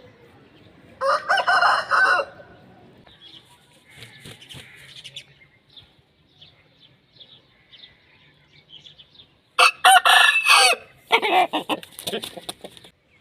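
Aseel (Asil) roosters crowing: one crow about a second in, then two more crows in quick succession near the end.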